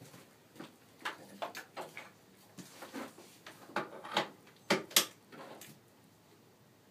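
A string of short metallic clicks and light knocks from A/C manifold gauge hoses being handled and their couplers fitted onto the service ports. There are about a dozen in the first five seconds, the sharpest near five seconds in.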